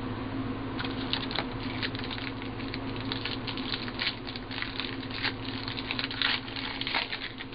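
Hands handling trading cards and foil card packs from a hobby box: a quick, irregular run of crisp card-stock and wrapper rustles and clicks that starts about a second in.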